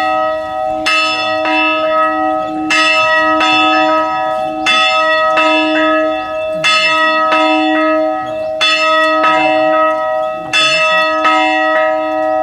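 Church bell rung by pulling on ropes, struck in pairs of strokes about every two seconds, with a long ring and a deep hum carrying on between the strokes.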